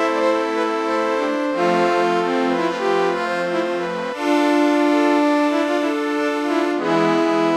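Accordion music: slow held chords over a pulsing low accompaniment, the chords shifting about a second and a half in and again about four seconds in. The pulsing low part drops out for a couple of seconds, leaving only the held notes, then comes back near the end.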